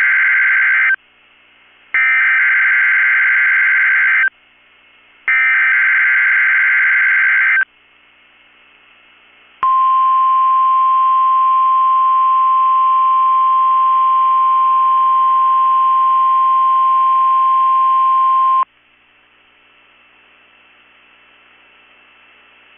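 NOAA Weather Radio SAME header: three bursts of shrill digital data tones, each about two and a half seconds long, the first already under way. About two seconds later the 1050 Hz warning alarm tone sounds as one steady pitch for about nine seconds and cuts off sharply. Together they activate alert radios for a required weekly test.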